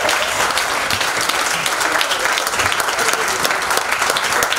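Audience applauding steadily: many hands clapping in a dense, continuous patter.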